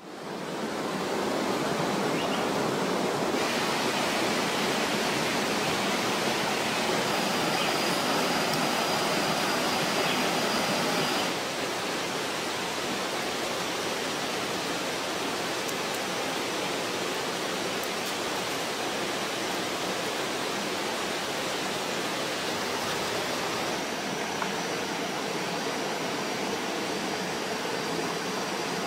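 Steady rushing of running water, like a stream or small waterfall, with a faint high thin tone drifting in and out. The level steps down slightly about eleven seconds in.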